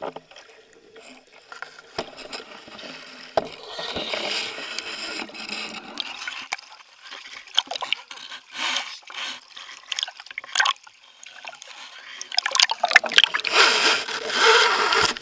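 Water splashing and sloshing around a body-mounted camera in its underwater housing as a spearfisher moves between surface and shallow water, with scattered knocks and clicks of handling. The heaviest, loudest splashing comes in the last few seconds.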